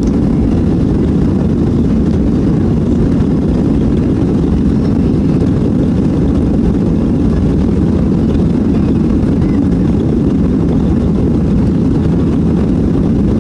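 Boeing 737-800's CFM56 jet engines heard from inside the passenger cabin: a loud, steady, low rumble of the take-off run or climb.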